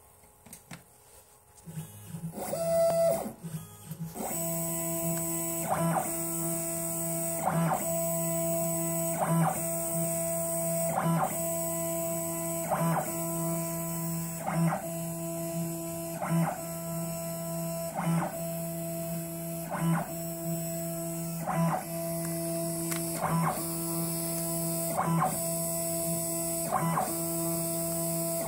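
CNC router stepper motor running an axis through its flexible shaft coupling: a steady, unchanging whine made of a few held tones, which settles in about four seconds in after a couple of brief starts. It breaks with a short click about every one and three-quarter seconds.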